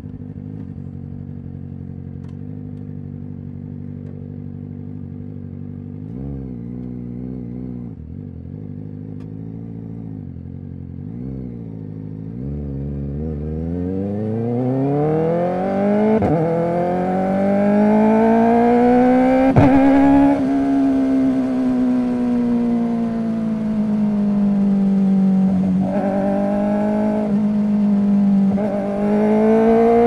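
Kawasaki Ninja ZX-4RR's 399 cc inline-four through an SC Project exhaust. It idles steadily at first, then gets a few short revs, then pulls away with the pitch climbing hard. Sharp clicks mark quick-shifter upshifts, and it settles into a steady, slightly wavering cruise with a few more clicks near the end.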